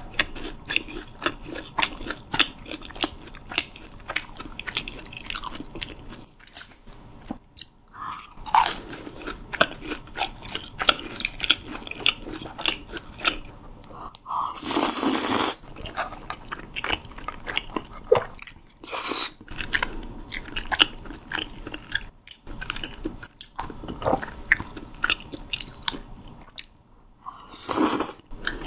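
Close-miked eating of Korean street food: biting and chewing with many quick crackling clicks, as of crunchy fried snacks, and one louder noisy sound lasting about a second just past the middle.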